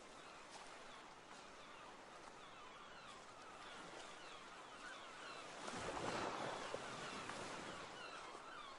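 Faint sea ambience: a low wash of water with many short bird calls over it, and a louder rush of noise swelling and fading about six seconds in.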